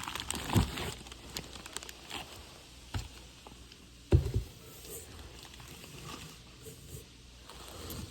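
Packaging being handled while a mixer grinder is unboxed: plastic and cardboard crinkling, with irregular knocks and two louder thumps, about half a second in and about four seconds in.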